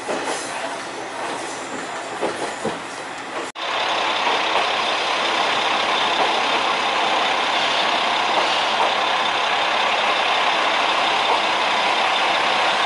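Diesel railcar running along the track, heard from inside the driver's cab. About three and a half seconds in it cuts to a louder, steady running noise of an Isumi Railway diesel railcar close by.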